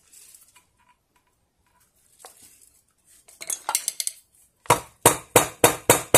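Light clicks, then a run of sharp hard taps about four a second. This is the sound of short rubber-hose plugs being tapped home into the foot holes of a septic tank air blower's plastic cover to make new rubber feet.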